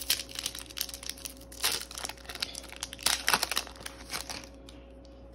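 Foil wrapper of a Pokémon TCG Silver Tempest booster pack being torn open and crinkled by hand, an irregular run of sharp crackles that thins out near the end.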